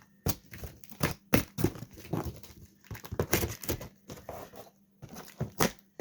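Packaging being handled during an unboxing: irregular crinkling and rustling in short bursts, with brief pauses between them.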